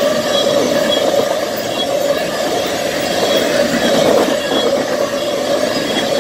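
Freight train of oil tank cars rolling past: a steady, loud rumble of steel wheels on the rails, with short high squeaks recurring every second or so.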